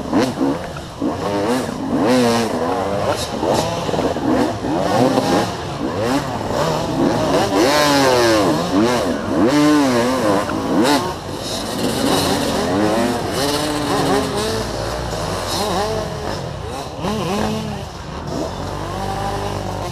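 Dirt bike engines revving hard and dropping back again and again, the pitch rising and falling about once a second, as bikes struggle up a steep muddy climb.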